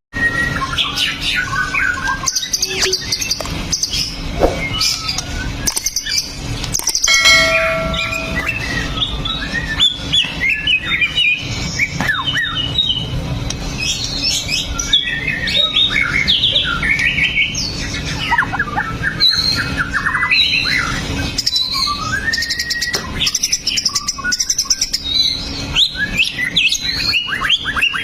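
White-rumped shama (murai batu) singing a long, varied song of clear whistles, slurred glides, rapid trills and harsh chatters, phrase after phrase without pause, over a steady low hum.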